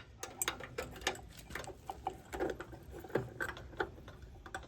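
Irregular light clicks and taps of hands working metal parts on a power rake, as the spring behind the belt pulley is being hooked in.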